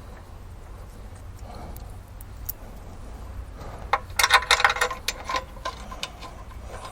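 Metal clinking and rattling of a wrench on steel bolts as the spring plate bolts are run in. Scattered light clicks lead up to a dense burst of clinks about four seconds in.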